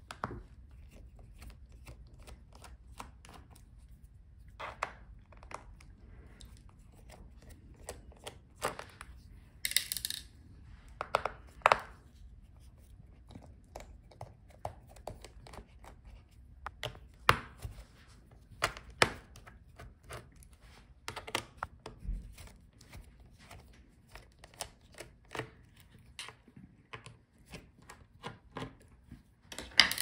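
Small T5 Torx screwdriver turning the screws out of a laptop's metal bottom case: scattered light clicks and scrapes of the bit in the screw heads, with a few sharper taps.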